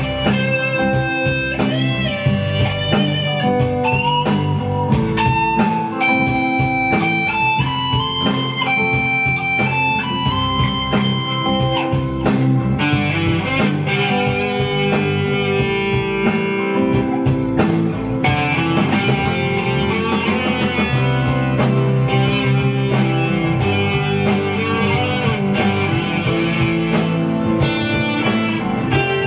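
Electric guitar playing a blues-style lead line of held and bent notes over a steady chordal accompaniment, with a burst of fast repeated notes about halfway through.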